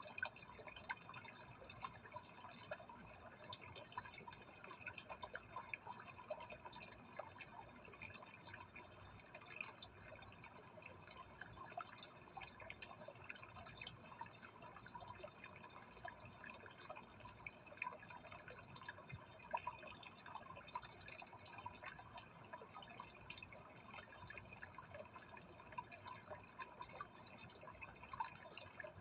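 Faint water sounds from a freshwater aquarium: a steady trickle dotted with many small, irregular drips and bubble pops.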